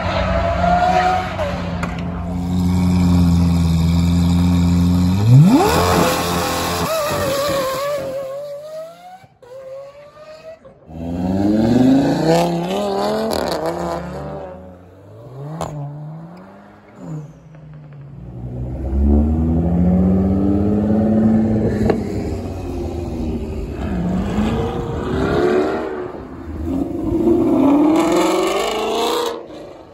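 Car engines revving and accelerating hard as cars pull away one after another, the pitch climbing and dropping again and again. Near the end a Ford Mustang GT's 5.0 V8 accelerates past.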